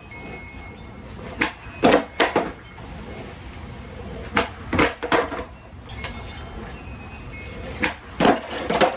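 Skateboard tricks being popped and landed: three bursts of sharp wooden clacks and clatter, each a tail pop followed by the board and wheels slapping down. The bursts come about a second and a half in, around four to five seconds, and near the end. A steady rush of wind on the microphone fills the gaps between them.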